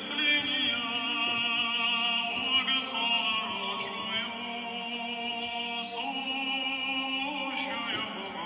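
Music with a sustained vocal line singing long, wavering notes over held chords.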